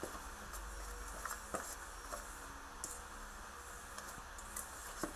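A metal utensil stirring flour into a wet ube mixture in a stainless steel bowl: faint scraping with scattered light clicks as it knocks against the bowl, over a steady low hum.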